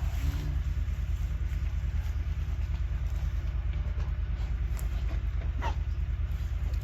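An engine idling steadily, with a fast, even low throb.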